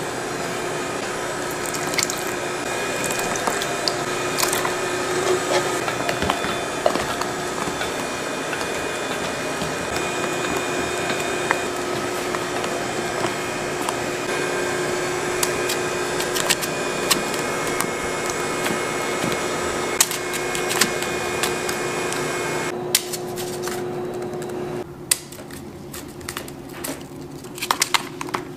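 A steady motor hum with scattered clicks and scrapes of a spatula against a stainless steel mixing bowl, and the soft squish of thick batter being folded and poured. The hum drops away about 23 to 25 seconds in, leaving sparser clicks.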